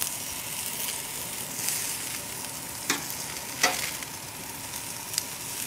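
Oil-coated vegetables sizzling on a hot grill grate: a steady hiss with three sharp crackles, about three, three and a half and five seconds in, as dripping oil flares up in the fire.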